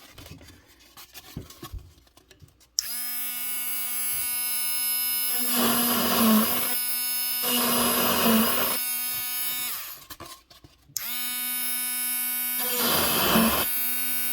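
Affanti mini rotary tool's small motor switched on about three seconds in, running with a steady high whine while its drill bit bores into foam in short spells of rough grinding noise. It switches off about seven seconds later, winding down briefly, and starts again a second after, with one more spell of cutting.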